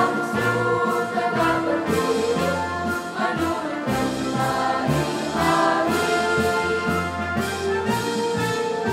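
A girls' choir singing a march in chorus, accompanied by an electronic keyboard playing sustained orchestral and brass-like chords over a bass line and a steady beat.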